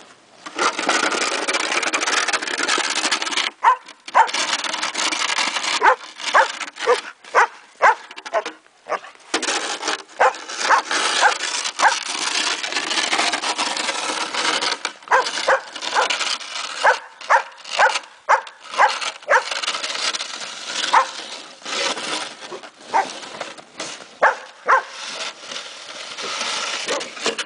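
A dog barking and yipping repeatedly in short calls, over a steady rough scraping hiss.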